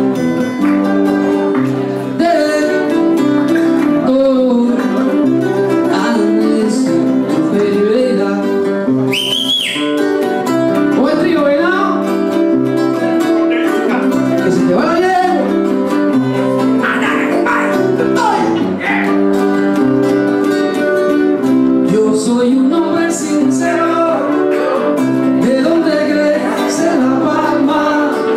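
Two guitars played together live, a small guitar and an acoustic-electric guitar, plucking and strumming a Latin American folk piece.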